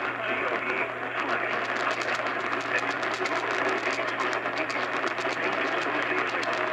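AM radio tuned to a distant station at night: a steady hiss of static with frequent crackles over a low hum, the station's audio buried and barely made out in the noise.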